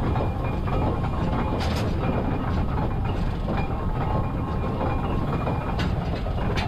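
1916 Cowley steam traction engine running under way: a steady mechanical clatter from its motion and gearing, with a few sharp clanks.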